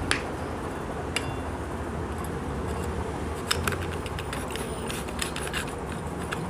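Scattered light metallic clicks and clinks as a stack of clutch friction and pressure plates is worked down into the clutch housing of a Honda CD100 engine.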